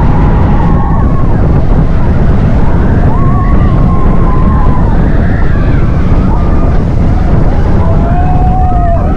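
Heavy wind buffeting and road rumble while riding in a moving Jeep, with faint wavering tones drifting in and out above it.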